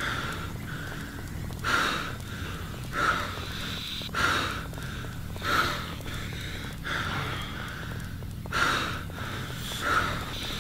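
A man breathing heavily and fast, a sharp breath about every 1.3 seconds, over a steady low hum.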